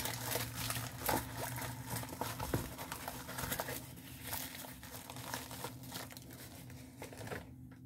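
Plastic packaging of a diamond painting kit crinkling as it is handled, an irregular run of crackles that grows softer about halfway through.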